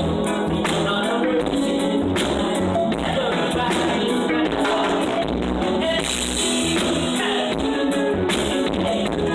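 Live band music with singing and a steady beat, from a stage sound check.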